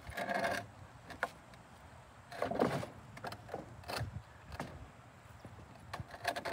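A painted wooden loading ramp being shifted against the back of a cart bed: a couple of short scrapes and several sharp wooden knocks.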